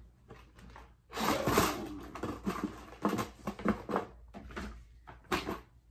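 Rustling, crackling and light knocking of items being handled and shifted in a plastic storage bin while packing. It starts about a second in and goes on irregularly, with a sharp crackle near the end.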